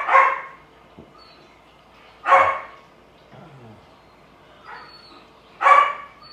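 African grey parrot imitating a dog's bark: a quick double bark at the start, then single barks about two and a half and five and a half seconds in.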